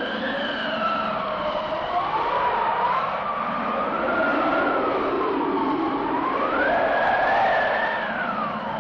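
Mountain wind howling: a whistling tone that slowly rises and falls in pitch over a steady rushing hiss, climbing to its highest a little past the middle and dropping again near the end.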